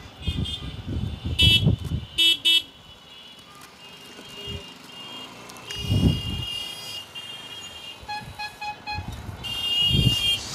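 Vehicle horns beeping in street traffic: three short, loud toots about a second and a half to two and a half seconds in, longer beeps around six and ten seconds in, and a run of quick short beeps near eight seconds. Gusts of wind rumble on the microphone of the moving two-wheeler.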